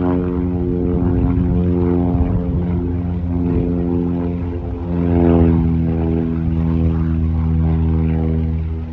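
Propeller airplane engine droning as the plane flies past overhead. It is loudest about five seconds in, and the pitch drops slightly as it passes.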